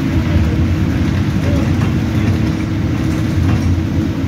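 Alexander Dennis Enviro200 Dart single-deck bus driving along, heard from inside the passenger saloon: a steady low engine drone with road noise.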